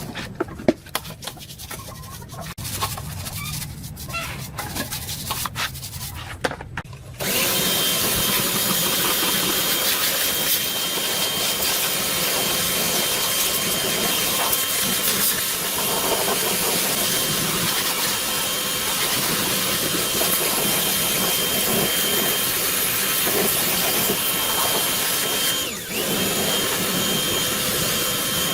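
Small knocks and rubbing of handwork. About seven seconds in, a power tool starts suddenly and runs at a steady, loud, high whine, dropping out briefly near the end before running on.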